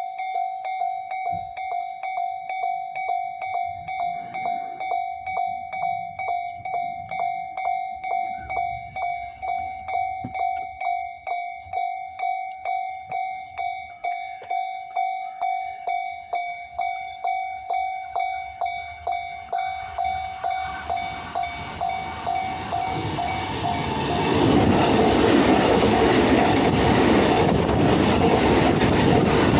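Japanese level crossing warning bell ringing steadily at about two strikes a second. Near the end a train runs over the crossing, its rumble and wheel noise rising over the bell.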